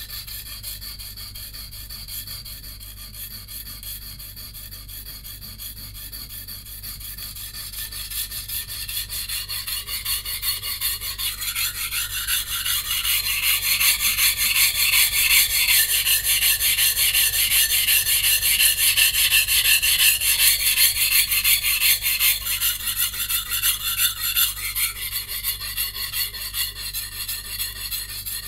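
Santoku blade with a VG10 steel core rubbed back and forth on a coarse 180-grit whetstone in quick, even strokes: a steady rasping scrape, loudest through the middle stretch. The edge is being ground at a raised angle to take out chips.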